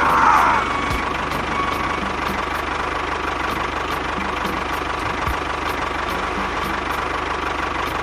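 Small motor of a DIY miniature bulldozer running steadily, with a constant high whine over a steady mechanical noise. A brief falling glide sounds in the first second.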